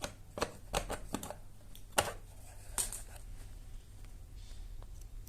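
A handful of irregular sharp clicks and taps in the first three seconds, the loudest about two seconds in, over a low steady hum.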